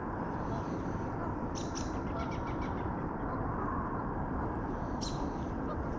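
Small birds chirping: a quick run of short high chirps about a second and a half in, and another brief call near the end, over a steady rushing noise.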